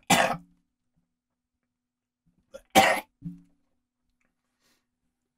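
A man coughs twice: short, harsh bursts about three seconds apart, each trailing into a brief low voiced sound.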